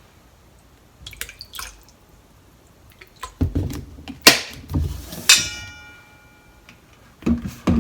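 Kitchen utensils knocking and clinking on a bowl while sauce ingredients are measured in. A few light taps come early, and several sharper knocks follow in the middle. About five seconds in, a spoon strikes the dish and leaves a short ringing tone.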